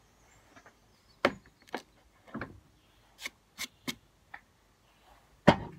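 A series of sharp, irregular knocks and taps on wood, about eight in all, the loudest one near the end.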